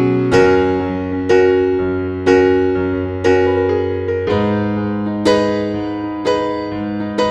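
Background music: a slow keyboard piece, notes struck about once a second and left to ring over a held low bass note.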